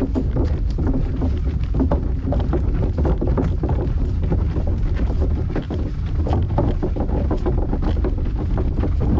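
Wind buffeting the microphone in a steady low rumble, with irregular crunching footsteps on a gravel and dirt track.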